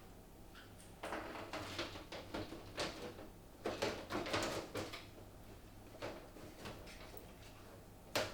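Handling noise from a PC case and its parts: irregular scraping, rustling and light knocks of things being moved about, with one sharp knock near the end.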